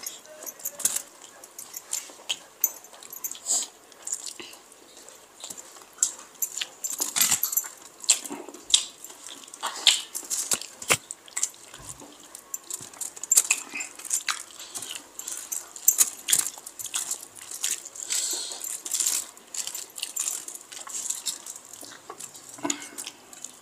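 Close-miked eating by hand: wet chewing and lip smacks with many short, irregular clicks, and fingers squishing curry-soaked rice against an aluminium-foil sheet.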